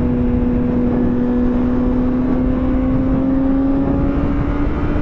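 Honda CBR600RR inline-four engine running at a steady cruise, its note rising slowly as the bike gently gains speed, with low wind rumble.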